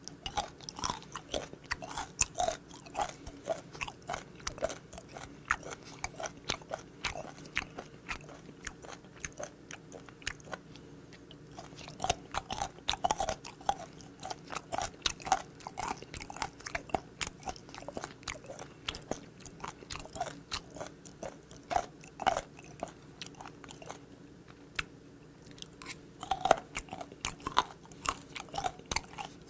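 Skate nose (hongeo-ko) being chewed close to the microphone: gristly cartilage crunching between the teeth in rapid, uneven crackles, pausing briefly a few seconds before the end and then resuming.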